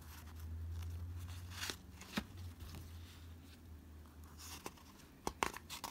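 Pages of a worn paperback picture book being turned by hand: faint paper rustling with a few sharp clicks and taps, several close together near the end.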